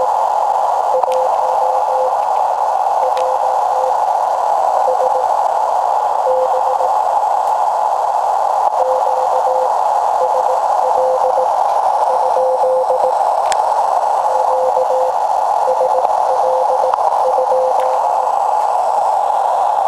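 Morse code (CW) signal from an amateur shortwave receiver: a single tone keyed on and off in dots and dashes over steady hiss narrowed by the receiver's CW filter. A few faint clicks of static.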